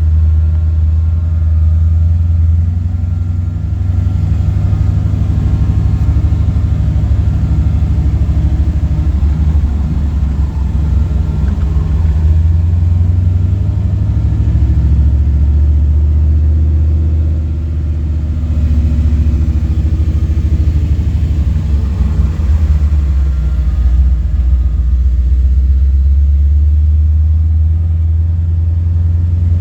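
Jeep running down a rough road, heard from inside the cab: a steady low engine and road rumble, with the constant buzzing of the heater fan motor over it.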